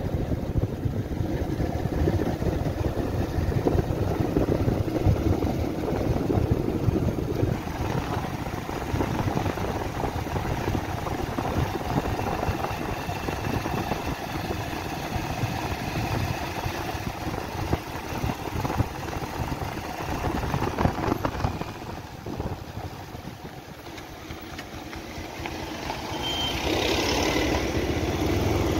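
A Bajaj Pulsar 150's single-cylinder engine running while the motorcycle is ridden along, with rushing wind noise. The sound eases off about three quarters through as the bike slows, then grows louder again near the end.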